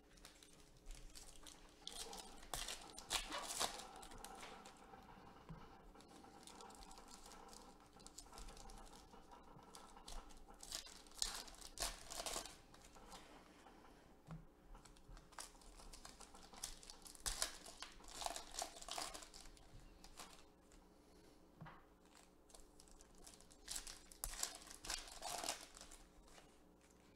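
Foil trading-card packs being torn open and crinkled by hand, with the cards inside handled between packs. The tearing and crinkling comes in several separate bursts.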